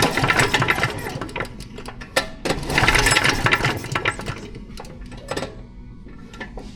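Mechanical workshop noise: repeated sharp clicks and clatter, with a louder, denser stretch of rattling noise lasting just over a second about two and a half seconds in, then quieter scattered clicks.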